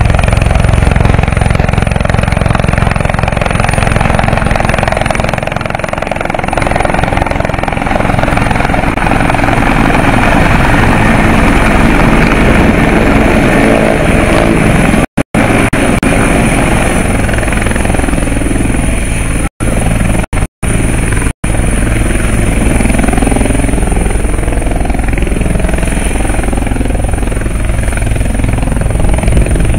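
Helicopter coming in to land and settling on the pad: steady rotor beat with a high turbine whine over it. The sound drops out briefly a few times around the middle.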